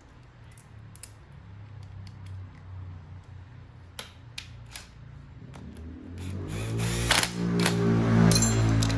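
Metal tool clicks and knocks as the AC compressor's magnetic clutch is put back together. About six seconds in, a steady motor drone starts and grows louder, with more clicks over it.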